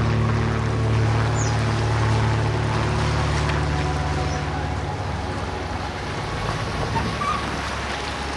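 Low, steady engine hum from a boat running at the dock. It fades after about five seconds, leaving open-air dock noise.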